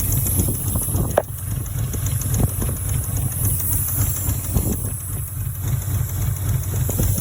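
Lexus SC300's straight-six engine idling unevenly, with a sharp pop about a second in and a few smaller knocks after. The owner takes this for misfiring or backfiring, with a vacuum leak.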